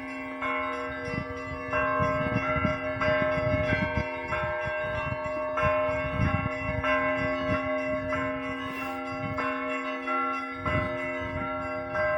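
Russian Orthodox church bells ringing: smaller bells struck in quick succession, about one or two strikes a second, their tones overlapping over the steady hum of a larger bell.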